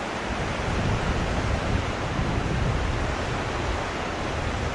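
Ocean surf washing against a rocky shore, a steady rushing noise, with wind buffeting the microphone.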